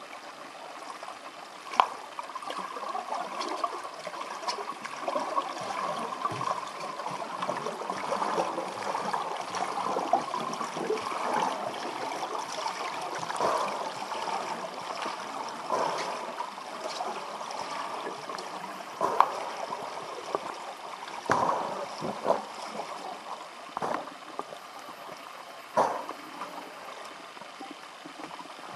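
Muffled rushing and gurgling of pool water heard through an underwater camera, with a sharp knock about two seconds in and several more in the second half.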